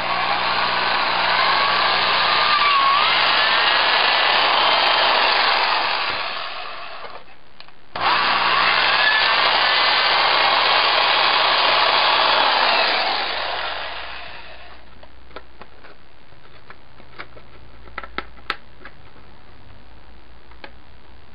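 Handheld power drill with a quarter-inch bit opening up holes in a plastic armor piece. It makes two runs, of about six and five seconds, with the pitch shifting as the bit bites, and each run winds down at the end. A few light clicks come near the end.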